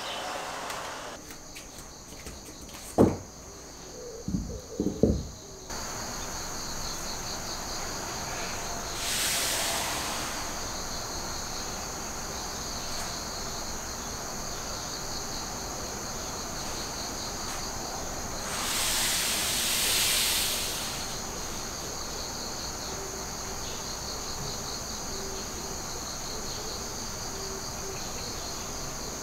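Insects chirring steadily outdoors in a high, fast-pulsing drone. A few sharp knocks come about three to five seconds in, and two soft swells of rushing noise about nine and nineteen seconds in.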